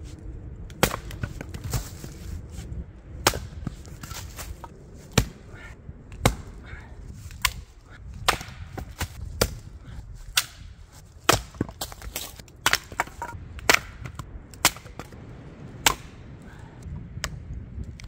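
Gränsfors Bruks small splitting axe chopping wood: sharp strikes, about one a second.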